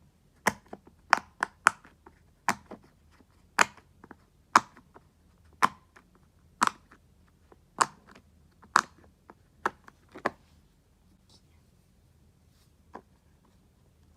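Bubbles of a silicone Pop-it fidget toy being pressed: a series of sharp pops, roughly one a second with a few closer together early on. They stop after about ten seconds, with one faint pop later.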